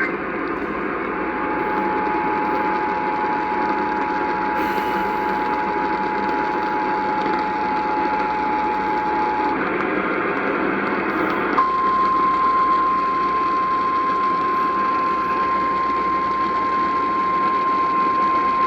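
Emergency Alert System tones over a hissing radio receiver: the EAS two-tone attention signal sounds for about eight seconds, then after a couple of seconds of static the single steady 1050 Hz weather-radio warning tone starts and holds. It announces a severe thunderstorm warning.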